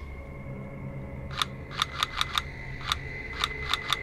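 Airsoft guns firing: about ten sharp snapping shots, single and in quick clusters, starting about a second and a half in. A faint steady high tone runs underneath.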